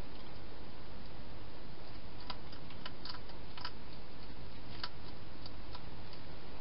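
A wild hedgehog eating at a bowl inside a plastic feeding box. A run of irregular sharp clicks from its chewing starts about two seconds in, over a steady hiss.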